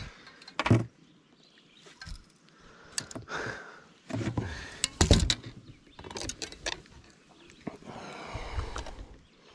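Irregular thumps and knocks on a bass boat's carpeted deck as a freshly landed bass flops about and is handled. The louder clusters come about a second in and again around the middle.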